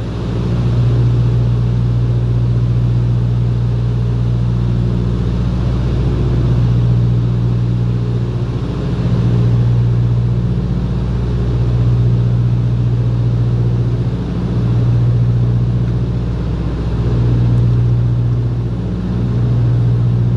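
Beech 18 twin radial engines and propellers droning steadily inside the cockpit, the drone swelling and fading every two to three seconds.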